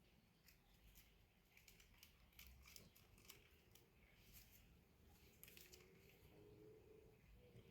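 Near silence with faint scattered clicks and ticks throughout, and a soft low call in the last couple of seconds.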